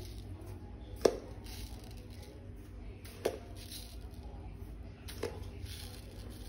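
Metal spoon clinking against a glass bowl three times, about two seconds apart, the first the loudest, with soft gritty rustling of granulated sugar being scooped and tipped in between the clinks.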